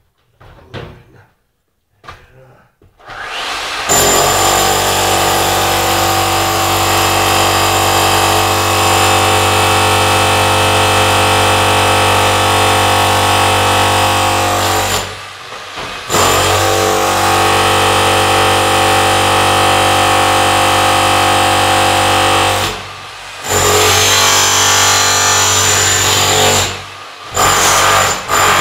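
A small motor or engine running loudly at a steady high speed with an unchanging pitch. It cuts out briefly twice, then runs in short bursts near the end, after a few quiet knocks at the start.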